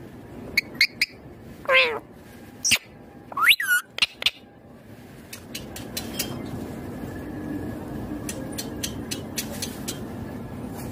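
Indian ringneck parakeet calling: a few short, sharp squawks, then a long call that falls and wavers in pitch and a rising squawk, all in the first four seconds, followed by scattered faint clicks over a steady background hiss.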